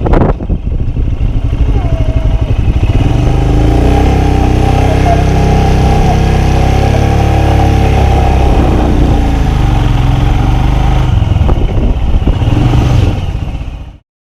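Motorcycle engine running under way, its pitch rising and falling with the throttle, fading out near the end.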